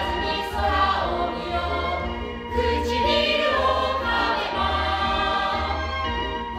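A choir of many voices singing together in sustained harmony, with a low pulse repeating about once a second beneath it.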